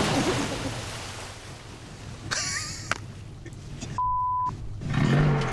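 A pickup truck ploughing into shallow lake water, its splash and spray dying away over the first second or so. About four seconds in, a steady half-second censor bleep.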